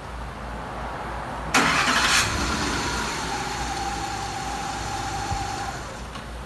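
2008 Ford F-150's engine cranks and catches about a second and a half in, then runs steadily at idle with a faint whine that slowly drops in pitch. The start comes as a test of the truck's hot no-crank, no-start fault, traced to the 1-amp diode in the engine-bay fuse box.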